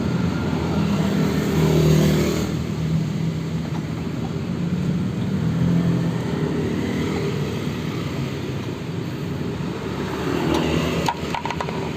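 A motor vehicle engine running, its pitch rising and falling, with a few sharp clicks near the end.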